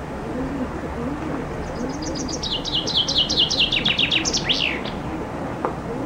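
Common chaffinch singing one full song about two seconds in: a run of repeated notes that falls in pitch and speeds up, ending in a flourish. A low repeated cooing sounds underneath during the first two seconds.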